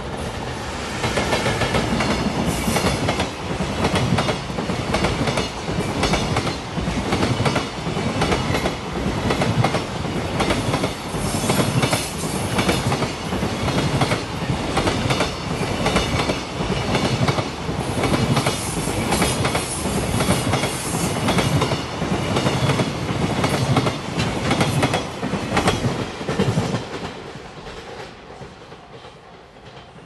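A freight train hauled by an EF210 electric locomotive passes close by, its container flat wagons clattering over the rail joints in a steady rhythm. The sound swells about a second in and fades away over the last few seconds.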